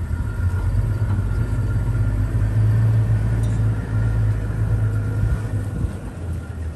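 Safari game-drive vehicle's engine running, a steady low drone, as the vehicle repositions.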